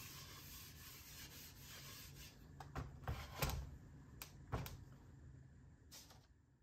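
Faint rubbing of an oily rag wiping walnut oil into a carved walnut bowl, then, from about two and a half seconds in, a handful of light knocks and clicks as the wooden bowl is handled on the workbench.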